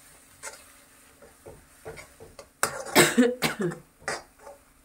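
A person coughing in a short fit of several coughs about two and a half seconds in, after a few light taps of a spoon in the pan.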